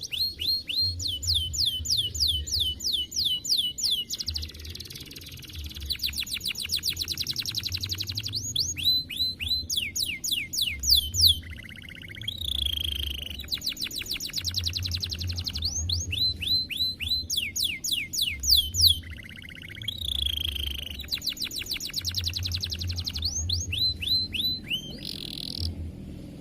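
A domestic canary singing a long, loud song made of fast trills: phrases of rapidly repeated high notes that sweep downward, each phrase lasting from about a second to several seconds, with short breaks and changes of note between them.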